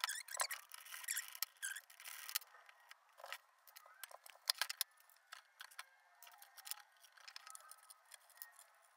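Light clicks and knocks as a longboard with its trucks and urethane wheels is handled and set down on a wooden floor and its hardware is laid out. The knocks are densest in the first five seconds. After that, faint wavering squeaks come in.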